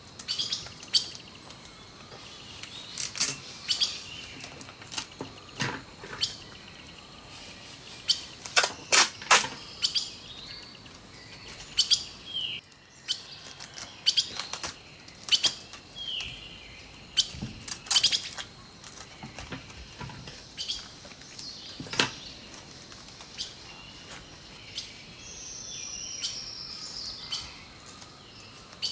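Birds chirping and calling in short notes and glides, with many sharp clicks and taps scattered through it that are the loudest sounds.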